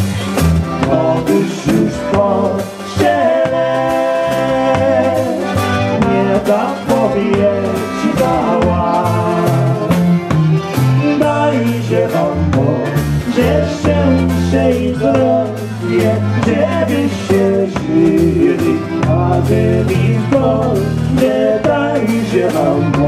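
Live polka band playing a waltz: a man sings over a drum kit and a low bass line, in a steady three-beat rhythm.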